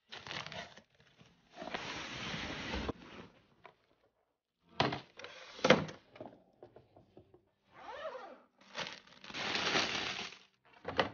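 Cardboard box and plastic packaging rustling and tearing in bursts as a rolling pet carrier is unboxed, with a few sharp clicks, the loudest near the middle.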